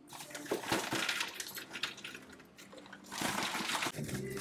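Popcorn poured from a plastic snack bag, the popped kernels falling into a glass dispenser and then onto a ceramic dish, with the bag crinkling. A burst of pouring at the start, a lull, then more pouring from about three seconds in.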